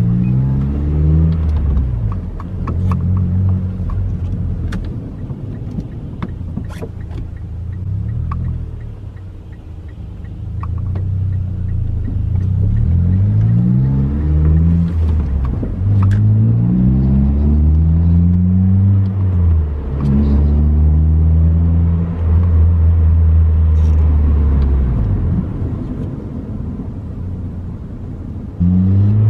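Mitsubishi Lancer's four-cylinder engine heard from inside the cabin as the car is driven. The engine note climbs in several pulls, each breaking off and dropping as it changes gear.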